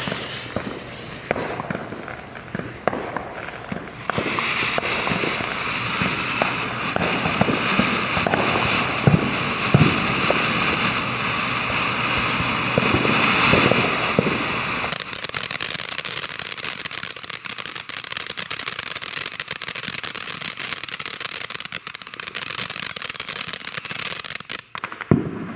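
TNT Pyro Fan fountain firework: the lit fuse sputters for about four seconds, then the fountain sprays with a loud steady hiss. About fifteen seconds in, this changes to dense crackling, which cuts off near the end as it burns out.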